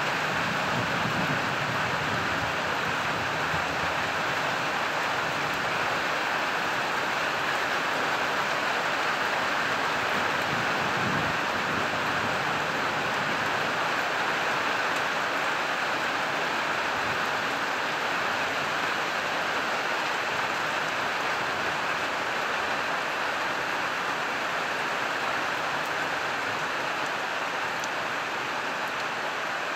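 Heavy summer rain pouring steadily: a dense, even hiss of a downpour on the ground, roofs and foliage.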